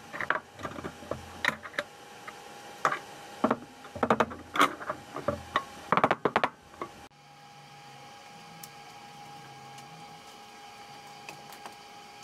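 Irregular sharp clicks and knocks of steel square tubing being handled and positioned on a tube-frame chassis, denser in the second half, over a steady shop hum. About seven seconds in the knocking cuts off, leaving the steady hum with a few faint ticks.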